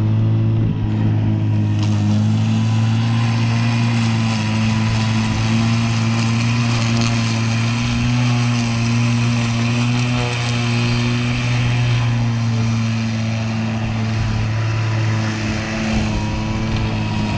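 Powerbase cordless battery lawn mower running, a loud steady hum from the electric motor and spinning blade over the rushing noise of cutting long grass.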